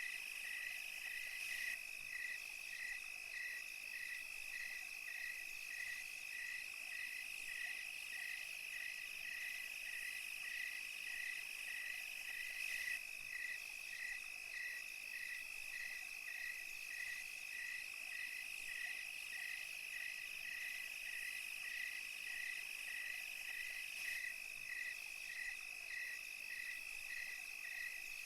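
Night chorus of crickets and other insects: a steady high-pitched trill with a single chirp repeating evenly, about three every two seconds.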